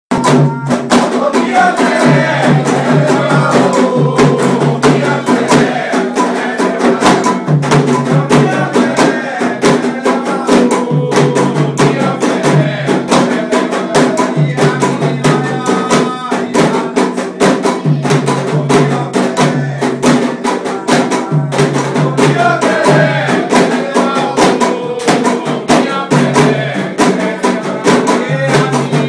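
Candomblé ritual music: atabaque hand drums beaten in a fast, steady rhythm, with voices singing over them.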